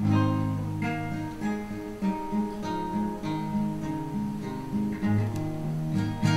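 Acoustic guitar playing a slow sequence of chords, with new notes sounding about once a second.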